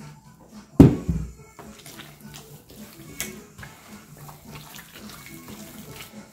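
Hands kneading wet corn masa for tamales in a plastic bowl, soft squelching and pats as water is worked in. A single loud thump comes about a second in.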